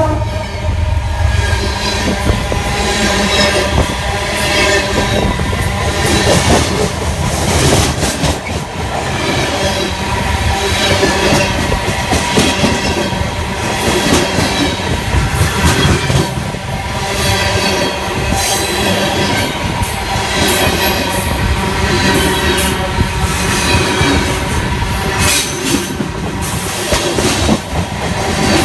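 A train rolling over freshly ground (rail-ground) track, making a loud continuous rumble with a steady ringing tone from the wheels on the rails, plus repeated clicks and clacks.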